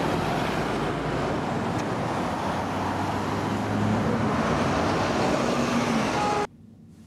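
Street traffic noise with a Jaguar XKR-S's supercharged V8 running at low speed as the car moves off slowly in traffic. The sound cuts off suddenly about six and a half seconds in.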